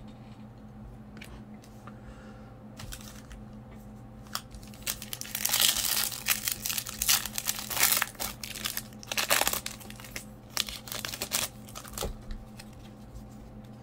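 Foil wrapper of a Topps baseball card pack crinkling and tearing as it is ripped open by hand, in a run of sharp crackles from about four to twelve seconds in.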